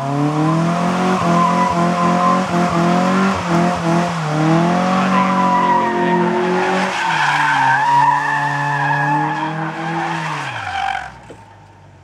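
Toyota AE86 Corolla's engine held at high revs through a smoky burnout donut, its note wavering with the throttle over the hiss of spinning, squealing rear tyres. About eleven seconds in, the revs fall away and the sound drops off sharply.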